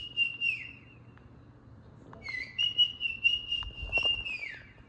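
Dog whining in two long, high-pitched cries: a short one that trails off about half a second in, then a longer one from about two seconds in that holds steady before sliding down in pitch.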